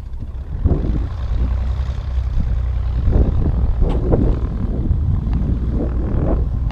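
Aircraft engine rumbling steadily, with irregular gusts of wind buffeting the microphone.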